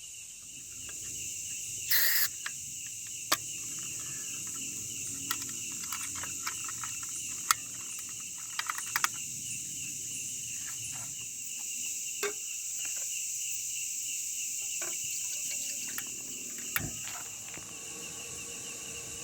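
Insects chirping steadily in the forest: a fast pulsing chirp over a high continuous buzz. Scattered light clicks and knocks come through it, with one louder burst about two seconds in.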